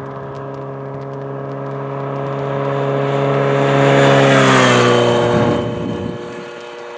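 Kawasaki Z900RS inline-four with a Holeshot/Lextek 4-2-1 header cruising past in sixth gear at about 65 mph, around 4,000 rpm. The steady exhaust note grows louder as the bike approaches, drops in pitch as it goes by about five seconds in, then fades away.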